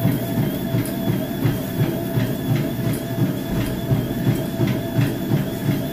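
Running feet striking a treadmill belt in a steady rhythm of about three steps a second, over the steady hum and whine of the treadmill's motor and belt.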